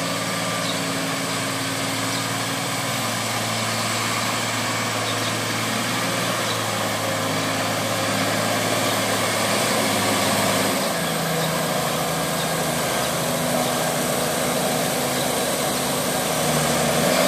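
Valtra T191 tractor's six-cylinder diesel engine running steadily while working the mud in a flooded paddy field. Its note shifts about eleven seconds in, and it grows a little louder near the end as the tractor comes closer.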